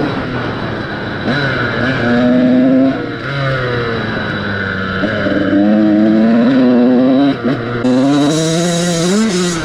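2012 KTM SX 85 two-stroke single-cylinder engine revving hard under load, its pitch climbing and dropping back four or five times as it shifts through the gears. The engine pulls freely to high revs on a freshly fitted spark plug, which cured its earlier bogging at the top end.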